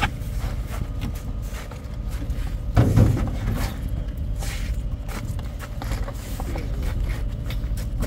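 Crushed ice being scraped and pressed down by hand over fish in a polystyrene box, with short crunches. A steady low rumble runs underneath, swelling once about three seconds in.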